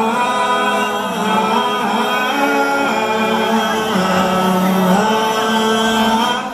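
Several voices singing long held notes in close harmony, with little or no instrumental backing; the chord shifts every second or so and the singing stops abruptly near the end.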